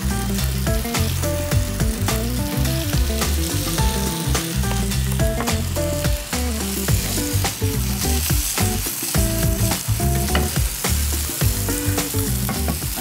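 Cubed potatoes and chopped garlic sizzling as they fry in olive oil in a pan, stirred with a spatula, over background music with a steady beat and bass line.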